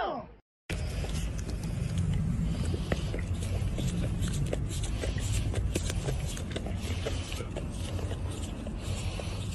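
A golden retriever licking an ice pop: many small wet licking clicks over a steady low rumble, starting just under a second in after a brief silence.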